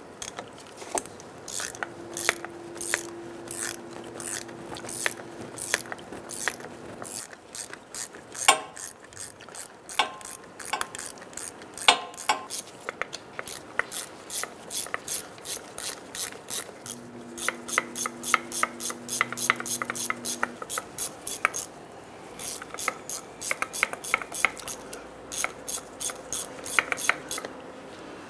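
Socket ratchet clicking in quick runs, again and again, as the drive shaft flange bolts are run down snug.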